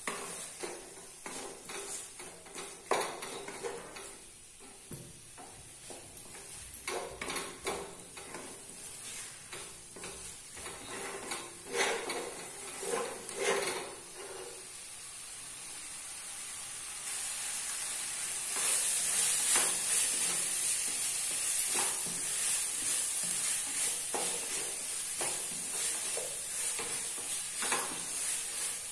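Wooden spatula stirring and scraping spiced chicken in a pot as it sautés, over a steady sizzle of frying. Short scrapes come often in the first half, and the sizzle grows louder about two-thirds of the way through.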